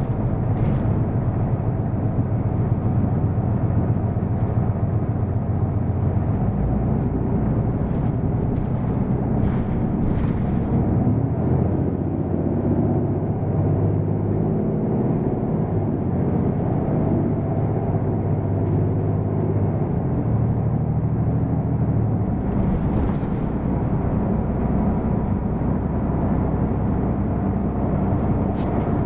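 Hino PDG-KV234N2 route bus's diesel engine running as the bus drives, a steady rumble whose note rises and falls in the middle stretch. A few short hisses come through, around a third of the way in and again near the end.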